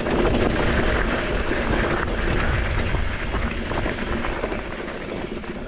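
Mountain bike descending a loose, rocky trail at speed: wind on the microphone and tyres rolling and sliding over gravel, with the frame and drivetrain rattling in quick clicks. It eases off a little near the end.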